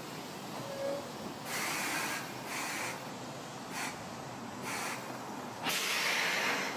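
Compressed air hissing from a train's pneumatic system in a series of short bursts, the last and longest near the end.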